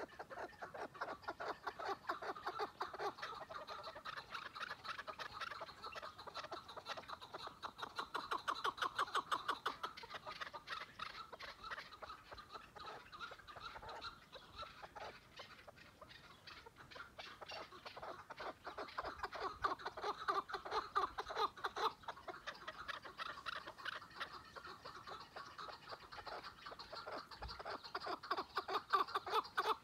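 Chukar partridge calling: bouts of fast, repeated clucking 'chuck' notes. The calls are louder through the first ten seconds and again from about 18 s on, and softer in between.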